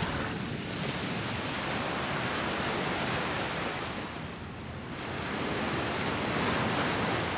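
Ocean surf breaking and washing around rocks: a steady rush of water that eases a little about halfway through, then swells again.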